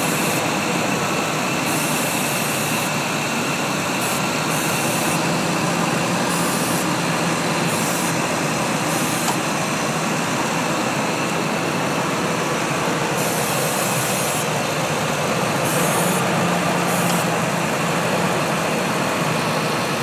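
2003 Ford F-150 engine idling steadily under the open hood, running lean with a vacuum leak at an intake rubber boot (codes P0171 and P0174, bank 1 and bank 2 too lean). Short bursts of high hiss come and go over the running engine.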